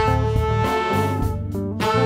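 Jazz octet playing: the horn section of trumpet, saxophones and trombone holds a chord over bass, keys and drums. The chord releases about three-quarters of the way through, and the horns come back in with a new figure near the end.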